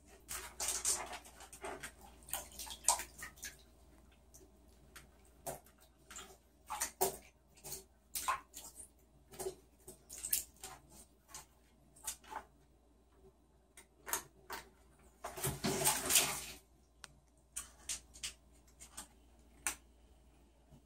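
A young raccoon scrabbling about in a bathtub: scattered scrapes, taps and knocks of claws and a plastic ring against the tub, with a longer, louder stretch of scuffling about fifteen seconds in.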